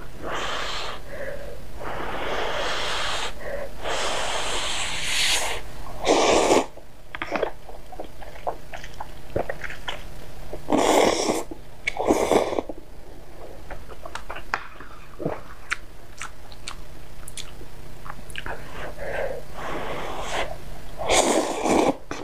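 A person slurping noodles with long breathy draws and several loud short slurps, with small wet chewing clicks in between.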